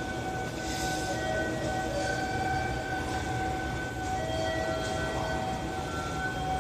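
Electric train standing in the station, its equipment giving a steady electric whine in two tones over a low hum. Shorter, higher whining tones come and go.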